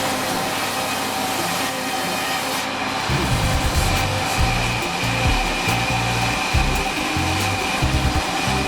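Sawmill saw running steadily, a constant whine over a noisy hiss.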